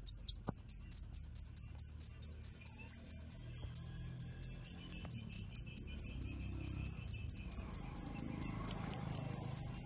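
A cricket chirping loudly and steadily: a clear, high note pulsing evenly about five times a second.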